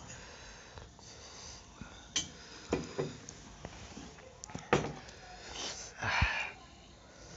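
Cola poured from a plastic bottle into a glass, fizzing, with a few sharp knocks of the glass and bottle being set down on the table.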